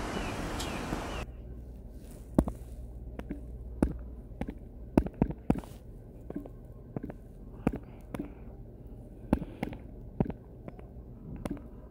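A steady rushing noise that cuts off suddenly about a second in, followed by irregular sharp taps of fingers typing on a phone's touchscreen keyboard.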